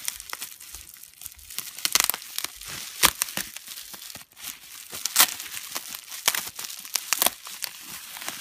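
Plastic bubble wrap crinkling and rustling as it is handled and pulled open to unwrap a toy, with several louder sharp crackles along the way.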